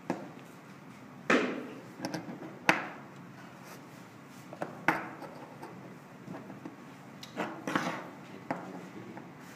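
Handling noises on a tabletop: a small cardboard box and a metal rebuildable dripping atomizer picked up, slid and set down, giving a string of short knocks and scrapes with a few louder taps.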